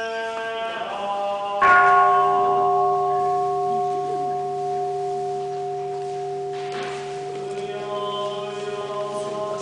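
Pipe organ holding slow sustained chords. A louder chord enters sharply about a second and a half in and slowly fades, and further notes join near the end.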